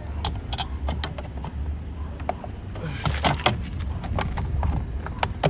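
Plastic trim of an Audi A3 door mirror being handled and pressed back into its clips: a series of sharp clicks and taps, thickest about three seconds in, over a low steady rumble.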